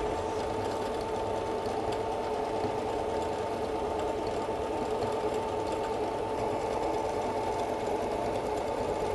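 Singer Confidence 7465 computerized sewing machine running steadily at an even pace, sewing a decorative stitch through thick towelling; quiet and smooth.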